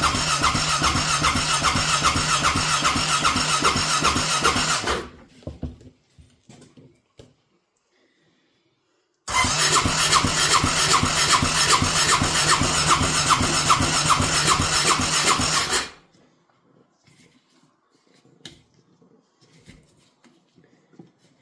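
Honda Rincon 650 ATV's electric starter cranking its single-cylinder engine in two long bursts of even, rhythmic chugging, the first ending about five seconds in and the second starting abruptly a few seconds later and cutting off after about seven seconds. The engine turns over but does not catch.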